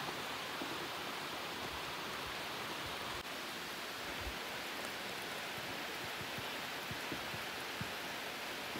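Steady rain falling: a constant, even hiss.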